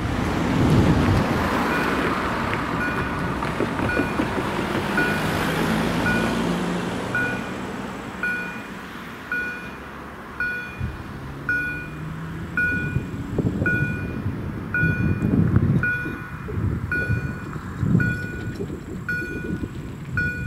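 A car drives over the level crossing at the start, and the crossing's warning signal then sounds in short, evenly repeated tones at about three every two seconds, getting louder, while the lights flash and the barriers lower. Bursts of vehicle rumble come and go underneath later on.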